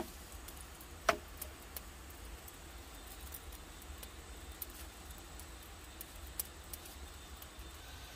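Wood fire crackling: sparse sharp pops and ticks from burning logs and embers, the loudest pop about a second in.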